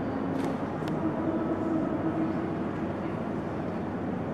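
Steady hall room noise, with a faint held note, the choir's starting pitch, coming in about a second in and fading out after a second and a half or so.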